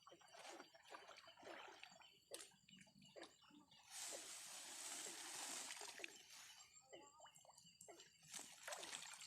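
Floodwater splashing and sloshing in irregular bursts, with a longer, louder splash lasting about two seconds near the middle.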